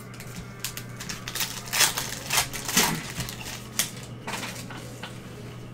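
Gloved hands sliding and flicking through a stack of trading cards: a run of dry scrapes and clicks, busiest in the middle, over a steady low hum.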